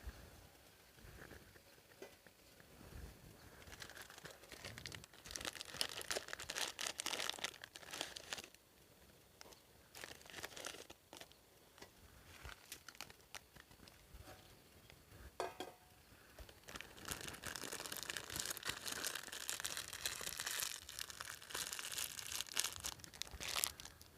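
Crinkling and rustling, like material being handled, in two stretches of several seconds each, quieter in between, with a brief faint tone about two-thirds of the way through.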